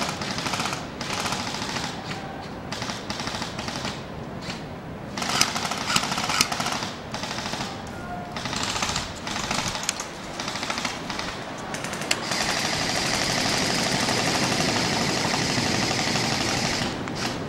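Airsoft guns firing in rapid automatic bursts, a fast clatter of shots. It comes in short bursts at first, then one long unbroken burst of nearly five seconds starting about twelve seconds in.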